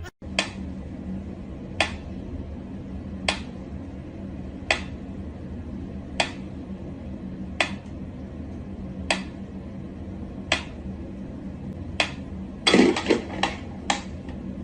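A sharp click or tap repeating at an even pace, about once every second and a half, over a low steady hum, with a quick flurry of louder knocks near the end.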